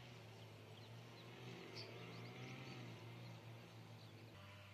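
Near silence: faint bird chirps, a cluster of them around the middle, over a low steady hum.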